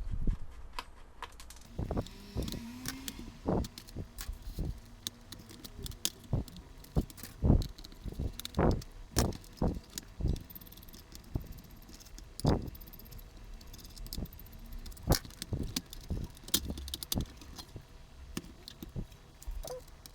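Irregular clicks, taps and knocks of a laptop being taken apart by hand: plastic casing parts and small metal pieces handled, pried and set down.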